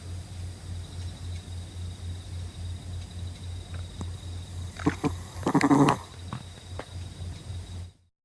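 An animal snoring in its sleep: a steady low rumble that pulses evenly, about three times a second. A louder, pitched sound breaks in about five and a half seconds in, and the snoring stops just before the end.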